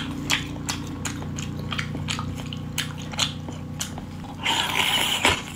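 Close-up biting and chewing of a whole sauced cuttlefish: irregular sharp mouth clicks and smacks, about three a second.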